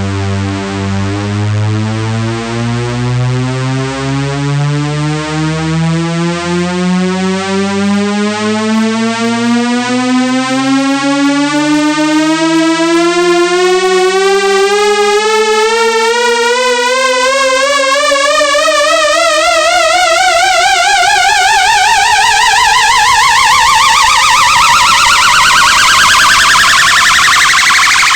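A buzzy synthesized test tone glides slowly and steadily upward from a deep bass pitch to a high one, with a warble that grows as it climbs.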